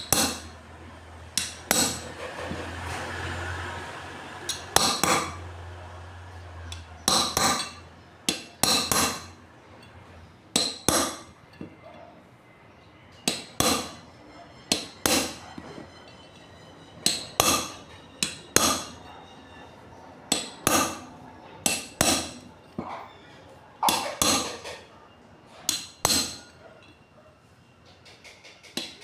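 A hammer striking metal parts of a water pump in short runs of two or three ringing blows, repeated throughout, tapping a part to seat it tight during a bearing and seal rebuild. A quieter steady hum runs for the first few seconds.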